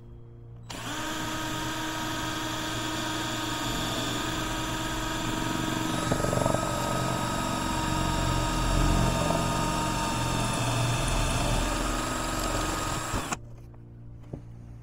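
Cordless drill running steadily while boring a drainage hole down through a rock-shaped bonsai pot. It starts about a second in, shifts pitch about halfway through as the bit grinds deeper, and stops shortly before the end.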